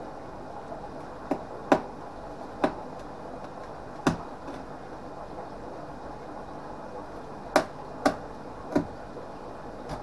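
A blade being worked into the side of a cardboard box to cut small slits: about seven short, sharp clicks at uneven intervals over a low steady hum.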